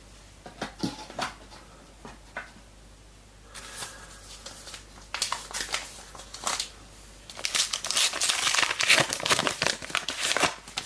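Trading-card pack wrapper being crinkled and torn open, with a few light handling clicks at first and the crinkling loudest through the second half.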